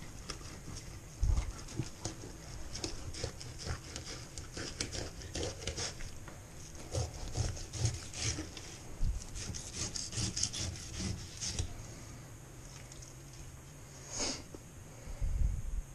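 Knife cutting and scraping through a zander on a wooden cutting board: many short rasping strokes, with a few dull knocks of the fish and blade against the board.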